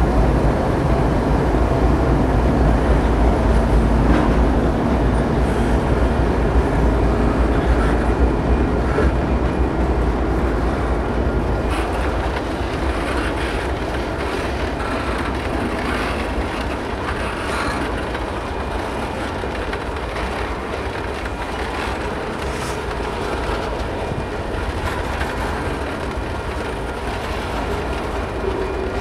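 Canadian Pacific GE ES44AC diesel locomotives and a string of tank cars rolling past. A deep engine rumble is strongest in the first dozen seconds, then eases into the steadier rolling noise and faint clicking of the tank car wheels on the rails.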